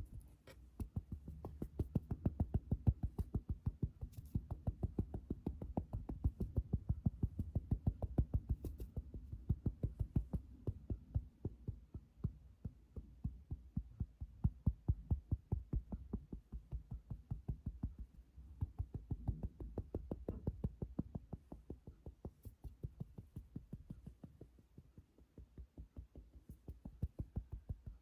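Close-miked ASMR fingertip tapping: rapid, soft, dull taps at about five a second, keeping up a steady patter with a couple of softer stretches.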